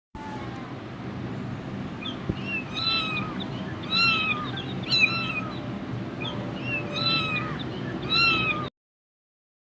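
A cat meowing repeatedly: five short, high meows roughly a second apart over a steady background hiss, cutting off abruptly near the end.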